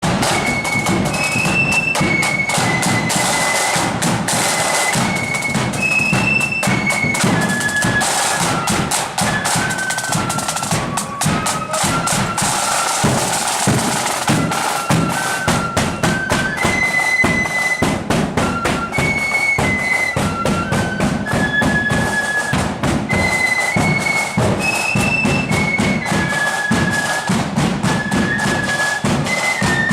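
Marching flute band playing a tune, the high flutes carrying a stepping melody over steady snare and bass drum beats.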